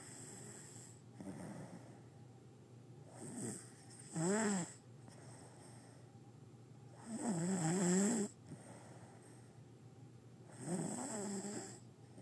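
A man snoring in his sleep: three loud snores about three and a half seconds apart, the middle one the longest at just over a second, with fainter snoring breaths before them.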